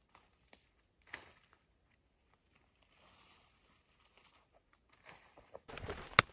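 Dry branches of forest slash being dragged and handled over dry leaf litter: a few scattered twig snaps and cracks, faint rustling, then louder crackling brush rustle near the end with one sharp snap.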